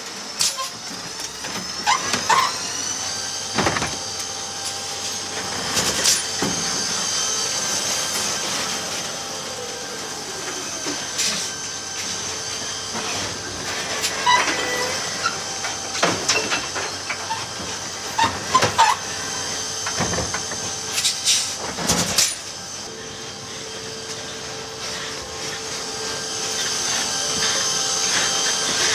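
Electric Heil side-loader garbage truck working its automated arm: a steady high electric whine from the motors and hydraulic pump, broken by repeated clanks and bangs as the arm grabs, tips and sets down a plastic recycling cart and the lid and contents knock about.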